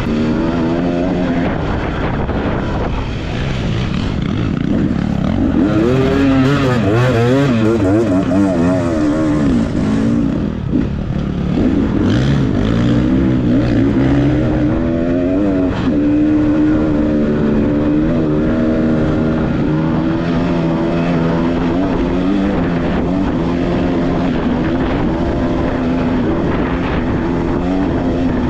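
Dirt bike engine running under way on a trail, its pitch swinging up and down repeatedly with the throttle a few seconds in, then holding a fairly steady note.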